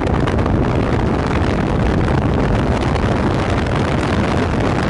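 Steady road and wind noise from a vehicle driving at highway speed, with a low rumble and wind buffeting the microphone.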